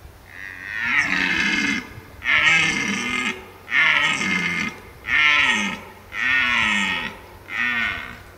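Red deer stag bellowing in the rut. One long, drawn-out roar is followed by a series of five shorter roars, with brief pauses between them.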